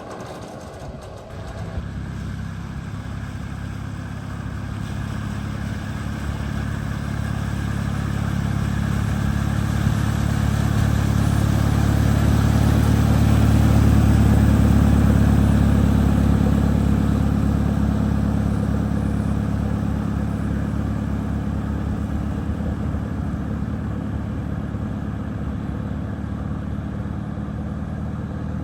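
A vehicle engine running at low, steady revs as it drives slowly through floodwater, getting louder over about twelve seconds and then slowly fading as it passes.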